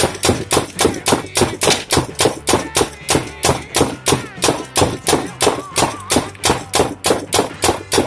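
Spyder Victor semi-automatic paintball marker firing nylon riot balls in rapid succession, about three shots a second, each a sharp pop.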